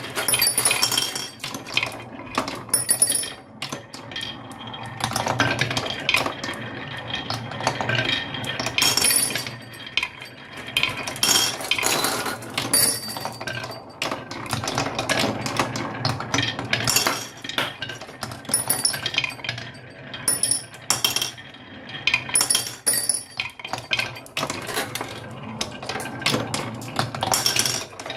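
Small hard toy pieces clattering and clinking down a toy track, a dense run of quick clicks in bursts over a steady low hum.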